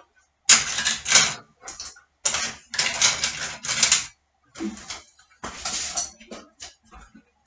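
Metal cutlery clattering and clinking as it is dropped into a dishwasher's cutlery basket, in irregular bursts of rattling.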